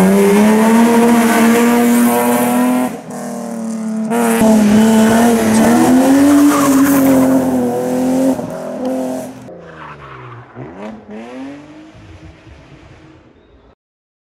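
BMW 3 Series hillclimb cars drifting, engines held high in the revs with tyres squealing. The sound jumps abruptly twice in the first few seconds; later the engine fades away with its note falling, then cuts to silence just before the end.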